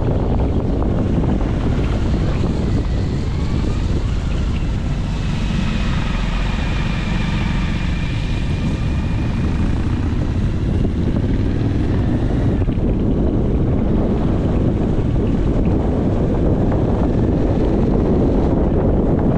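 Wind buffeting the microphone in a steady low rumble, with a faint whine that bends slowly up and down from about two seconds in until past the middle.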